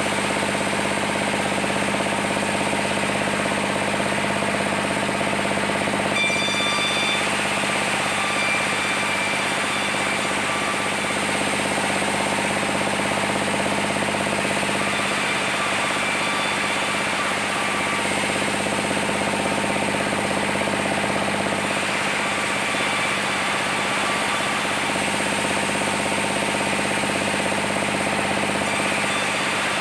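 Sawmill machinery running steadily with a constant engine-like hum, milling saman wood into planks. A higher whine joins about six seconds in and comes and goes after that.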